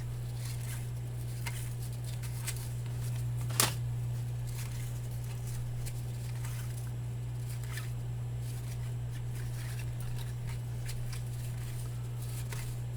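Baseball cards being handled and flipped through one by one: faint scattered rustles and flicks, with one sharp click about three and a half seconds in, over a steady low hum.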